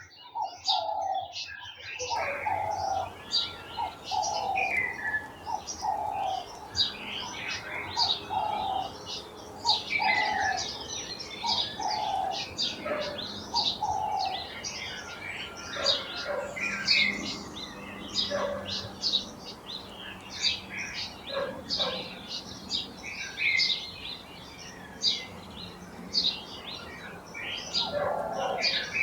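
Garden birds chirping and calling together: many quick high chirps throughout, with a lower call repeated about once a second through the first half and again near the end.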